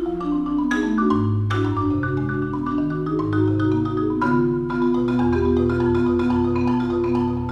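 Solo concert marimba played with mallets: slow, sustained rolled notes and chords, with long rolled bass notes under shorter higher notes.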